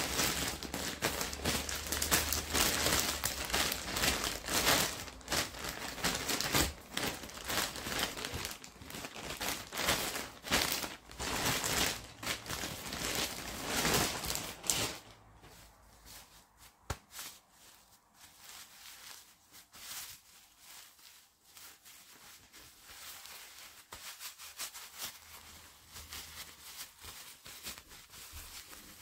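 Plastic packet of disposable diapers crinkling as it is handled, dense and loud for about the first fifteen seconds, then dropping to soft, scattered rustling.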